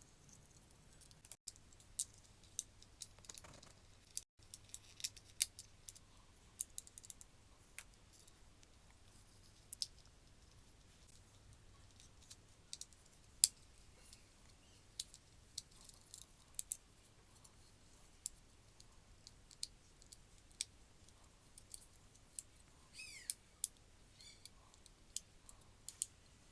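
Scattered light clicks and taps of small plastic parts being handled and fitted together while a mini pouch heat sealer is reassembled, with a brief squeak near the end.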